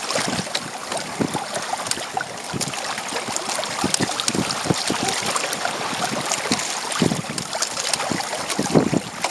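Water splashing and sloshing against the hull of a Hobie Tandem Island sailing kayak under way in choppy water, in irregular slaps, with wind buffeting the microphone.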